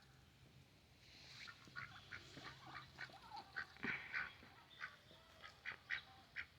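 Ducks quacking softly in a faint run of short, irregular calls that start about a second in.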